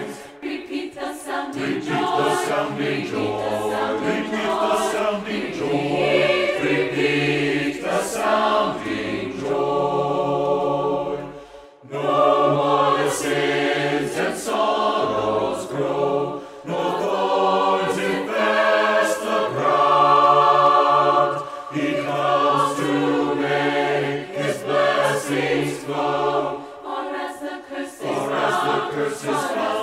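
Mixed choir of men's and women's voices singing, with a short break about twelve seconds in.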